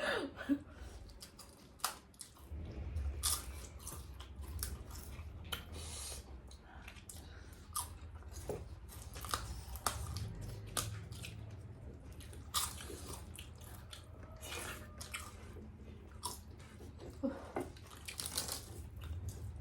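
People chewing food during a rice meal, close to the microphone, with many scattered short clicks from mouths and eating.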